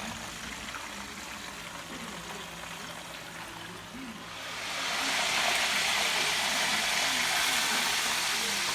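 Faint background chatter of several voices, joined about four and a half seconds in by a loud, steady hiss that holds to the end.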